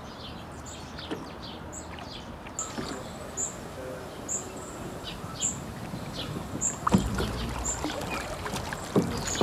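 Water sloshing and lapping in a shallow tiled pool as a young petrel paddles, with a couple of louder splashes in the second half. A high chirp repeats about once a second in the background.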